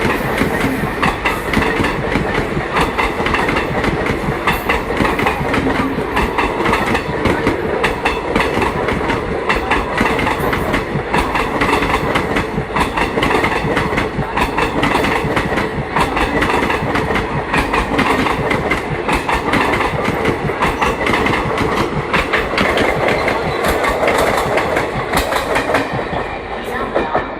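Coaches of an Indian express passenger train running through the station at speed without stopping, the wheels clattering rapidly and steadily over the rail joints. The clatter fades a little near the end.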